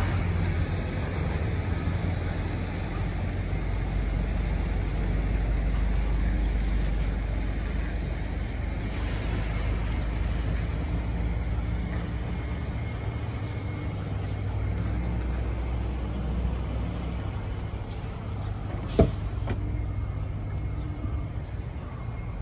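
Semi-truck diesel engine idling with a steady low rumble. There is a single sharp click about three-quarters of the way through.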